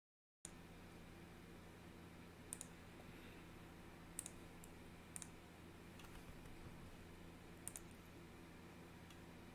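Near silence with a steady low hum, broken by about half a dozen faint, sharp clicks at irregular intervals, a few of them in quick pairs. The first half second is dead silent before the room sound cuts in.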